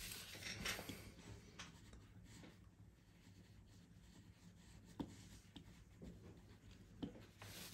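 Faint scratching of a pen on paper in short sketching strokes, with two soft clicks later on.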